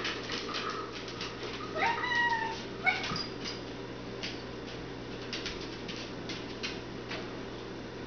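A cat meows twice, a longer call rising in pitch about two seconds in and a short one a second later. Dogs' claws and a plastic ball click on a hard floor throughout.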